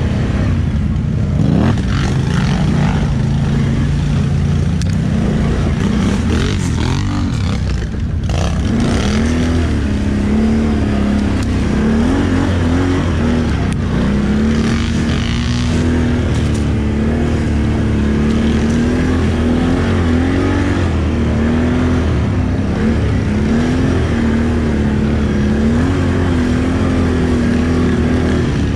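ATV engine running continuously, its revs rising and falling again and again, with a brief drop in level about eight seconds in.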